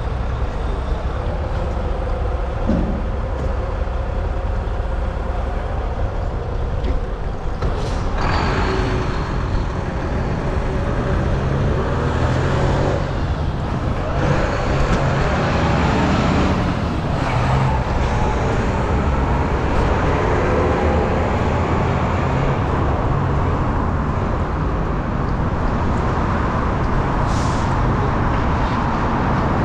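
City street traffic with vehicles passing and a steady low rumble. A few louder passes come a third and about half of the way through, and a brief hiss comes near the end.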